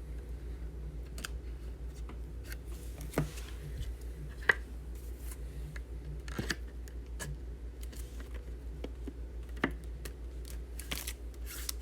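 Scattered light clicks and taps of a thick trading card being handled and worked into a rigid plastic card holder, over a faint steady low hum.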